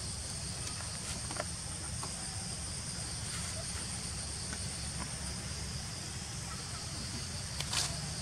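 Steady high drone of insects in the surrounding forest over a low, even rumble, with a few faint clicks and one short sharp sound near the end.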